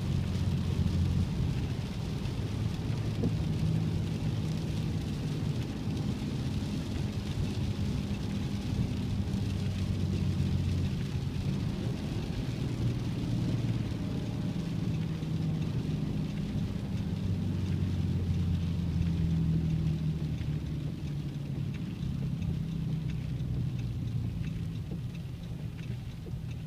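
Car driving on a wet road in rain, heard from inside the cabin: a low engine and tyre hum that swells and eases a little, with the hiss of rain and road spray over it.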